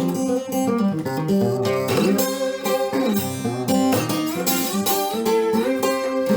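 Background music: strummed and plucked acoustic guitar playing chords at a steady rhythm.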